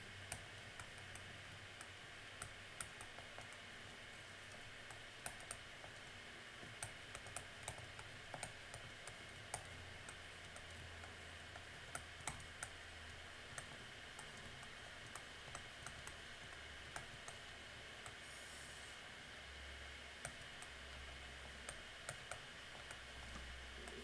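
Faint, irregular clicks and taps of a stylus on a tablet screen during handwriting, over a steady low hum.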